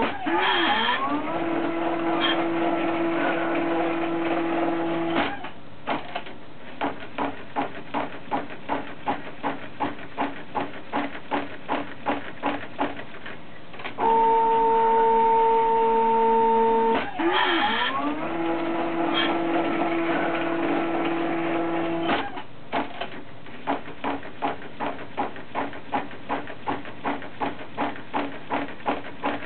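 Homemade plaster-and-ink powder-bed 3D printer running through its repeating print and recharge cycle, twice over: stepper motors give steady whining tones with a brief sweep in pitch, then a long stretch of regular mechanical pulses about twice a second.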